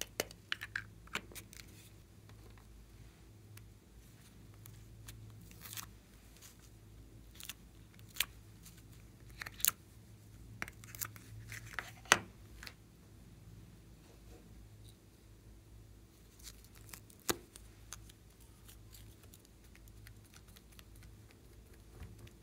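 Scattered clicks and light taps of small plastic items and tubes being handled over a glass bowl of slime, irregular and sparse, with one sharper click about halfway through.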